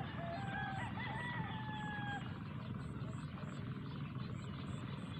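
Steady outdoor rumble and hiss, with a distant animal's call that wavers in pitch through the first two seconds.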